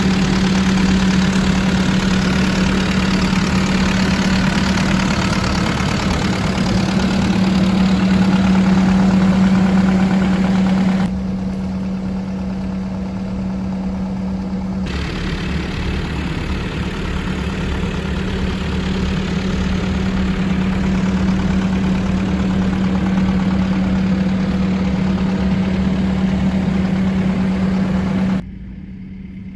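Diesel engine of a Caterpillar 308E2 mini excavator running steadily, with a strong constant hum. The sound drops abruptly about eleven seconds in, comes back up about four seconds later, and falls off sharply near the end.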